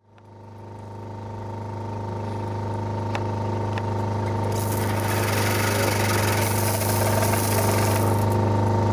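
Pressure washer running with a steady hum that fades in at the start. From about four and a half seconds in until about eight, the water jet hisses loudly as it sprays.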